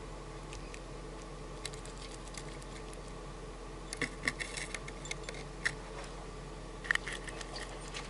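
Sharp little clicks and taps from a bird pecking at a halved orange in a bowl on a wooden feeder, one cluster about halfway through and another near the end. A steady low hum runs underneath.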